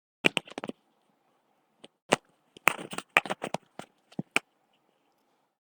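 Computer keyboard typing: a quick run of key clicks, a pause of about a second, then more irregular keystrokes.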